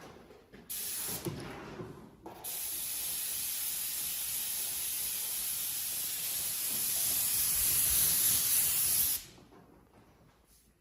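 Airbrush hissing as it sprays: a short spray about a second in, then a steady spray lasting about seven seconds that stops abruptly.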